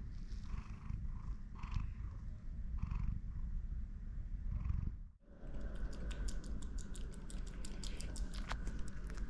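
Domestic cat purring, a steady low rumble. About five seconds in the sound breaks off abruptly and resumes, now joined by a faint steady high tone and many quick, irregular clicks.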